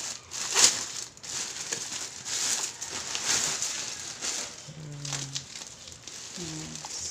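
Plastic packaging, a thin courier mailer bag and bubble wrap, crinkling and crackling as it is handled and pulled open. The rustling is continuous and full of small sharp crackles.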